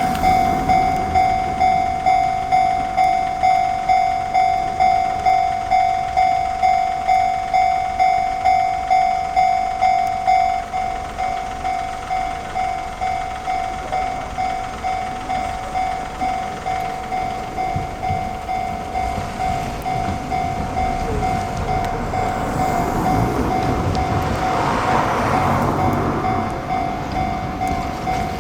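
Japanese level-crossing alarm ringing its repeated two-tone electronic clang, about one and a half strikes a second, dropping in volume about ten seconds in. Near the end an Enoshima Electric Railway train rolls over the crossing with wheel and rail noise that swells and fades while the alarm keeps ringing.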